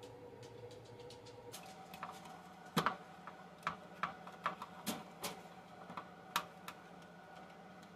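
Irregular light clicks and taps of plastic charger parts and wires being handled and fitted together during reassembly, the loudest knocks about three seconds in, over a faint steady hum.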